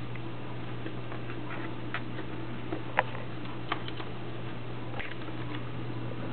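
Scattered light clicks and taps from a Pic snap mousetrap being handled and set, the loudest about three seconds in, over a steady low hum.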